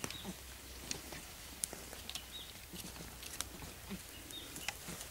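Scattered light clicks and taps, roughly one every half second to a second, from young Barbary macaques clambering on a dead tree trunk, with a few short high chirps over a faint low rumble.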